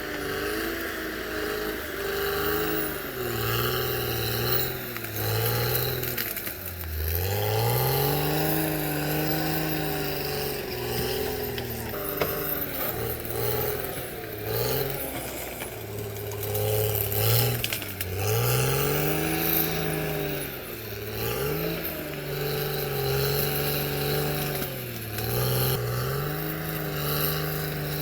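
Diesel engine of a Caterpillar D6R XL bulldozer working, its pitch sagging and climbing back again and again as the engine is loaded and eased while the dozer pushes earth, with the deepest dip about seven seconds in.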